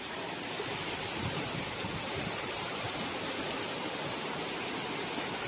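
Heavy typhoon rain with strong wind: a steady, even rushing hiss.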